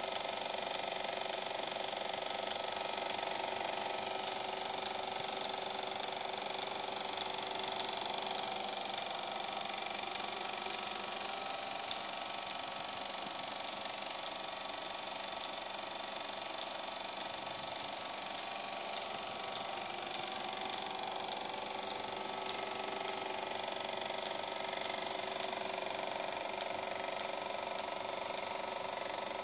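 EIKI Slim Line 16 mm film projector running: a steady, fast mechanical clatter from the film advance over an even motor whir.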